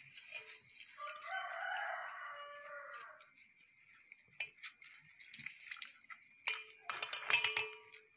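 A drawn-out animal call with several pitched layers starts about a second in and lasts about two seconds. Near the end comes a cluster of sharp clicks and rustles as a cotton cloth of wet chena is squeezed and lifted over a plastic strainer in a steel bowl.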